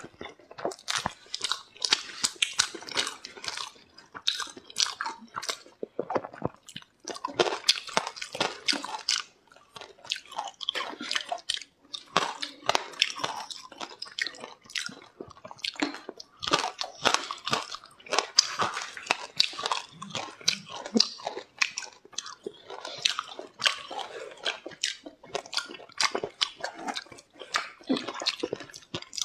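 Chewing and biting of crunchy food, with many sharp crackling bites in irregular runs and short pauses.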